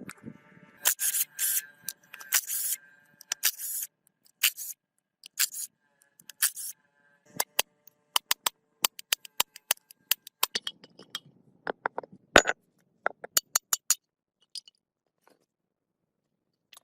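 Metal scraping and clinking: several rasping scrape strokes with a faint ringing, then a long irregular run of sharp clicks and knocks.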